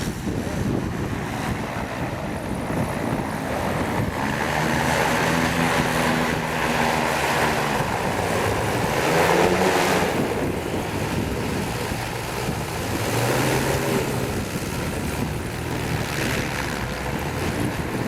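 An engine running, its pitch shifting around the middle and again later, over a steady haze of wind buffeting the microphone and water.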